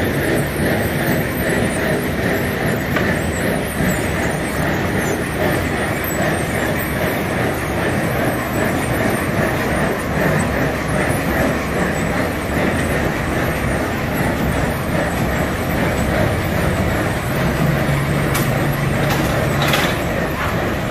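Engine-driven machinery of a round-to-square hay bale converter running steadily, with a few sharp knocks near the end.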